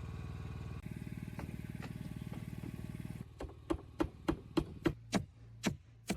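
A small engine runs steadily for about three seconds and then stops. A hammer then strikes about eight sharp blows, roughly three a second, as nails are driven during carpentry work.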